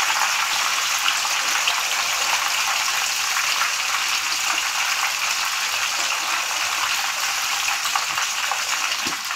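Masala-coated rohu fish pieces deep-frying in hot oil in a kadhai: a steady sizzle with fine crackles as the oil bubbles around them.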